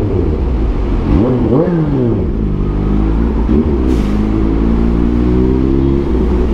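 Kawasaki Z H2's supercharged inline-four engine on the move, its pitch rising and falling as the throttle is opened and closed. Two quick rises and drops come in the first two seconds, then a steadier stretch, then a slow climb in pitch near the end.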